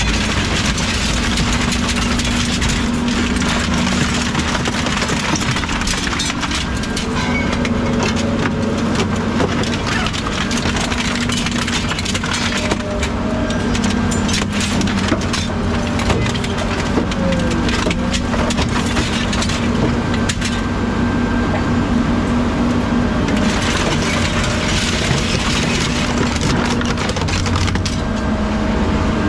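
An engine runs steadily beneath continual crunching and cracking of material being crushed, typical of scrapyard machinery at work.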